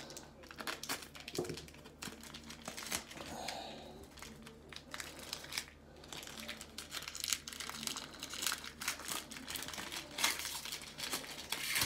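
Plastic-foil wrapper of a Panini Prizm baseball card pack being torn open and crinkled in the hands: an irregular run of crackles and rustles.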